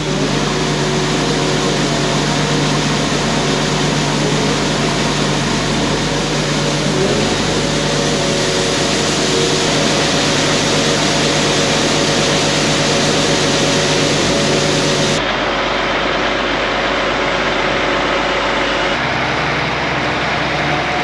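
Large farm machinery running steadily under load, a constant engine hum with a mechanical whirr over it. The sound changes abruptly twice, about 15 and 19 seconds in.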